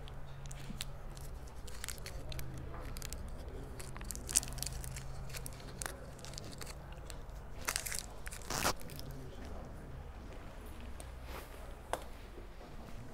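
Billiard-hall room sound: a steady low hum with scattered sharp clicks and knocks, the loudest one about four seconds in and a few more close together near eight to nine seconds.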